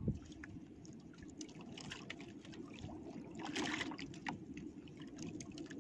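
Faint water lapping and splashing against the hull of a small outrigger boat, in small irregular splashes that come thicker about three and a half seconds in.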